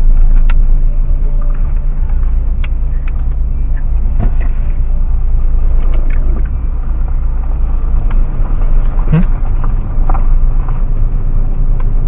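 Car engine running at low speed, a steady low rumble heard from inside the cabin, with a few faint clicks.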